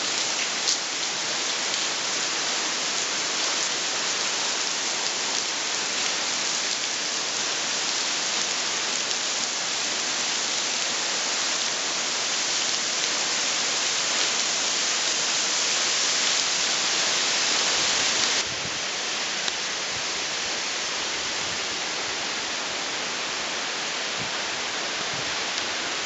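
Steady rush and splash of a waterfall's falling water. It drops suddenly to a slightly quieter steady rush about two-thirds of the way through.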